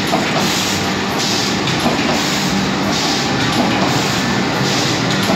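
Sakurai automatic screen printing press running: a steady mechanical clatter with a low hum and a hissing surge that repeats a little faster than once a second as it cycles through its print strokes.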